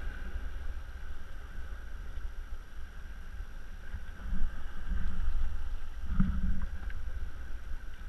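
Sea water lapping against a sit-on-top fishing kayak's hull as it drifts, under a low wind rumble on the microphone, with a few louder swells of water sound around the middle.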